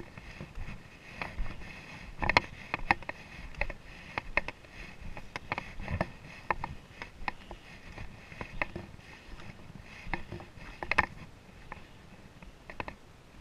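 Footsteps on a rocky dirt trail: irregular scuffs and clicks of boots on stone and gravel, a few to each second.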